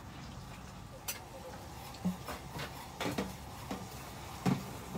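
Cutlery clinking and tapping on ceramic tableware. Scattered short clicks come in quick succession from about two seconds in, the loudest near the end, over a low steady room hum.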